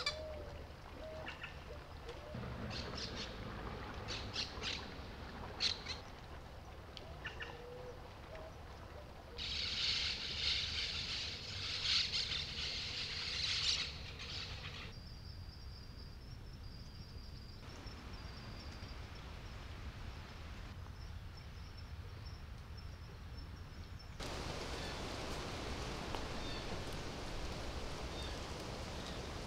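Outdoor ambience of bird calls and chirps over a low steady rumble. About ten seconds in, a dense high-pitched chatter of calls takes over for about four seconds, and a thin high call then repeats a few times. The background noise changes abruptly twice.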